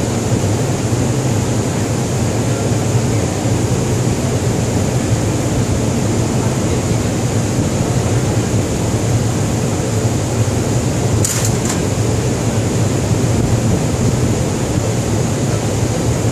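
Steady drone of a ship's machinery: a low hum with a thin high whine over it. A brief clatter about eleven seconds in.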